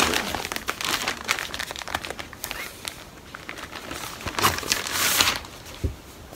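Thin plastic packaging bag crinkling and rustling in irregular crackles as folded clothes are handled in and around it. It is densest and loudest from about four and a half to five seconds in.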